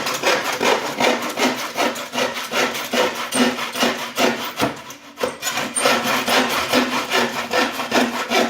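Handsaw cutting through wood by hand, quick even back-and-forth strokes about three a second, with a brief pause about five seconds in.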